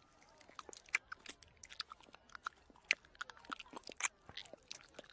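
Cartoon dog chewing food with wet mouth-smacking, a quick irregular run of small clicks.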